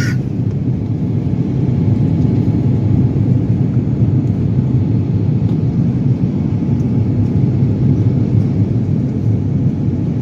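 Airliner cabin noise in flight: a steady low rumble of the engines and rushing air.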